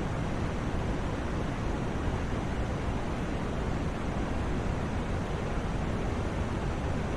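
Continuous white noise played for sleep: an even, unchanging rushing hiss, fuller in the low end than the high, with no rhythm or events.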